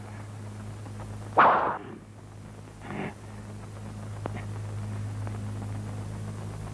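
Old film soundtrack with a steady low hum, broken by one sharp swishing hit effect about a second and a half in and a fainter one near three seconds.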